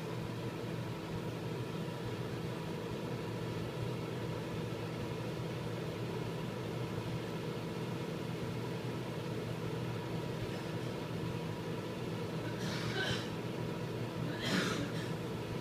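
Microwave oven running while it heats a cup of water: a steady electrical hum with several fixed tones. Two short noises come near the end.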